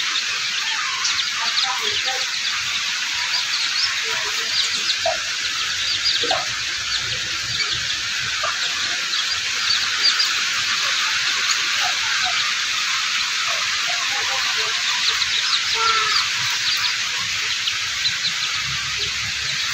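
Steady rain hiss with scattered short peeps and calls from young chicks.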